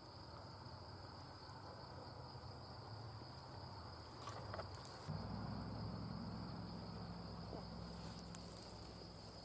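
Faint, steady high-pitched insect drone, with a low rumble that grows louder about five seconds in.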